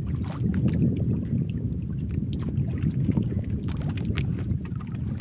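Steady wind buffeting the microphone on a small outrigger boat at sea, with faint clicks and splashes of water against the hull and bamboo outriggers.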